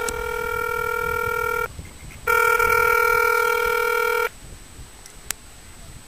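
Phone ringing tone: two steady electronic rings of about two seconds each, the second louder, followed about a second later by a single click.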